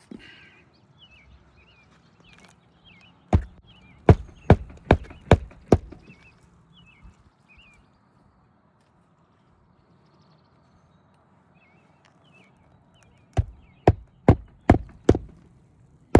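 Hammer driving roofing nails into an asphalt shingle to fasten it back down: a run of about six sharp blows about three seconds in, and another run of about six near the end.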